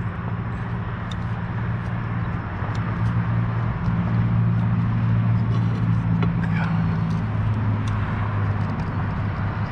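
A motor engine humming steadily at a low, unchanging pitch, growing louder through the middle and easing off near the end, with scattered light clicks over it.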